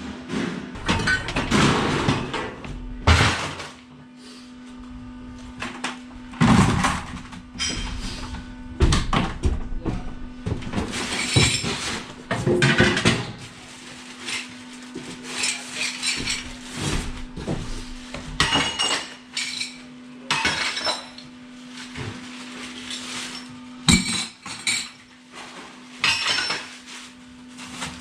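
Scrap metal clanking and crashing as pieces are thrown down one after another, irregularly, over a steady low hum.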